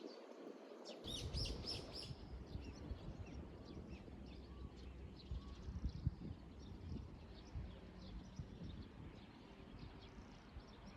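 Faint small-bird chirps, a quick cluster of them between one and two seconds in and scattered ones after, over a low steady rumble.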